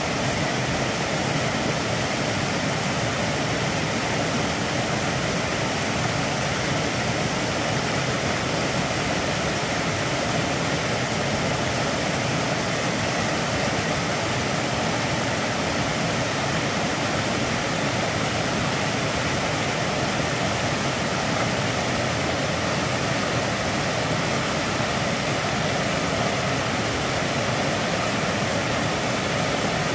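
Steady rush of a rocky stream cascading over boulders, running at high water after heavy rain.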